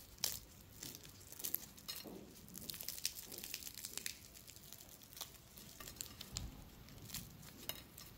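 Crisp, flaky baked puff pastry being torn apart by hand, its layers crackling in a series of small, sharp snaps.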